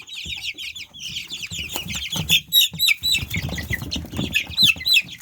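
A brood of young chicks peeping continuously: many short, down-slurred peeps overlapping, with a few louder, separate peeps standing out in the second half.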